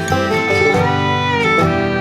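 Background music: acoustic string music with guitar and fiddle in a bluegrass style, with sliding fiddle notes.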